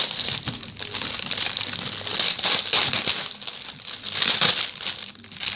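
Plastic packaging of a squishy toy crinkling and rustling in bursts as it is handled and opened.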